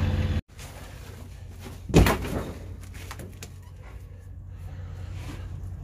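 A door slamming shut once, a single loud thump about two seconds in, followed by a few light knocks and rattles over a low steady hum.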